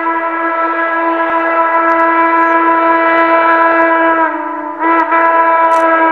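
Steam whistle of 2-6-6-2 articulated locomotive #1309 blowing long, steady blasts. One blast breaks off about four seconds in, and the next begins just under a second later at a slightly lower pitch.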